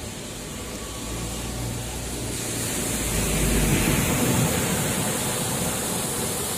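A car driving through floodwater: a low engine hum under the hiss and splash of tyres throwing up water, swelling to its loudest about halfway through.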